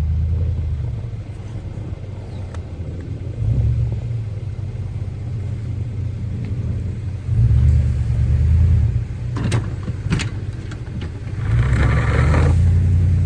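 Snowplow truck's engine rumbling and revving up in repeated surges, about every four seconds, as it pushes snow, with two sharp clanks past the middle and a noisy rush near the end.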